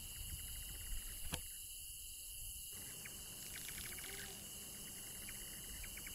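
Crickets and other night insects calling faintly: a steady high-pitched drone with short bursts of rapid chirping pulses that come and go.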